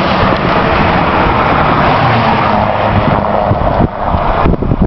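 Tanker semi-truck passing close by on the road: a loud rush of tyre and engine noise that drops away about four and a half seconds in, followed by wind gusting on the microphone.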